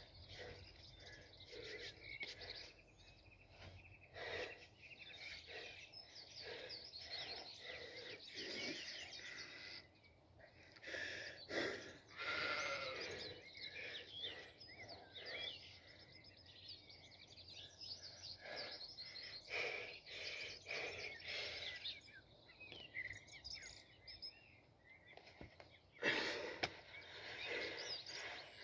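Birds singing and chirping throughout, with animal bleating at times. About two seconds before the end, a short, sudden loud sound as the stone is lifted into the lap.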